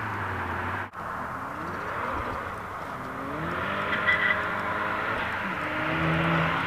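MK6 VW GTI's turbocharged 2.0 TSI four-cylinder, fitted with a K04 turbo and a DriveSPM turbo-back exhaust, pulling hard at full throttle: the exhaust note rises in pitch in repeated sweeps that fall back between them as it shifts through the gears. A brief sharp sound about four seconds in.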